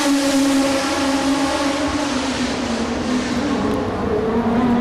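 Racing cars' turbocharged V8 engines running at high revs out of sight around the circuit, a continuous high engine note that wavers slightly up and down.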